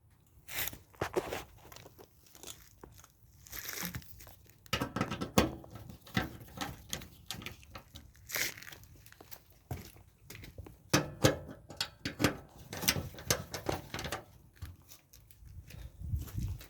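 Irregular clicks, knocks and scraping of washing-machine parts being handled and fitted by hand, as the back shield and its bracket go back on.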